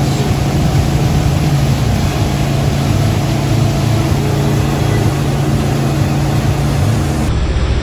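MasterCraft wake boat running steadily under way, a low engine drone under the wash of wind and water; the sound changes abruptly near the end.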